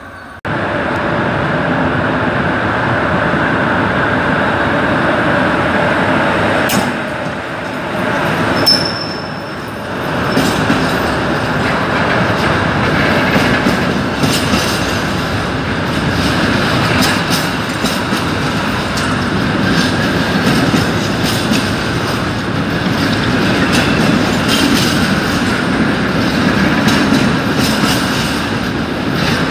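A freight train of wagons rolling past at steady speed: a continuous rumble of steel wheels on rails, with a brief high wheel squeal about nine seconds in and a run of sharp clicks and clatter in the later part.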